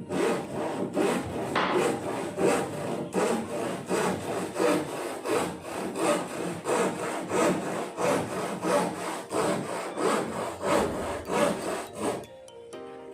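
Handsaw cutting through plywood in steady back-and-forth strokes, about two a second, pausing briefly near the end.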